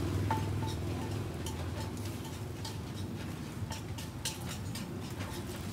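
Scattered light clicks of bamboo skewers being handled and set down on a charcoal grill, with a faint quick regular ticking, over a steady low hum.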